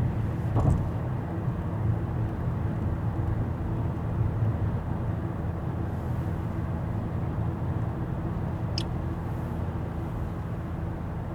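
Steady low rumble of a car on the move, engine and road noise, with a brief knock near the start and a short click later on.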